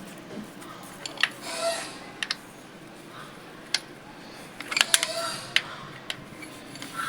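Metal tools and valve-train parts clicking and clinking against each other, with about a dozen sharp clicks scattered unevenly and a small cluster about five seconds in.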